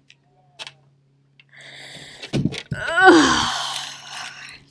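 A woman's drawn-out groan of disappointment, a loud falling "aww" about three seconds in, after a breathy exhale and a dull thud.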